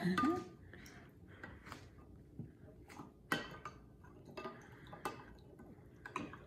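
Metal spoon stirring a liquid dipping sauce in a glass dish: faint, scattered clinks of the spoon against the glass with small liquid sounds, a few clinks a little louder.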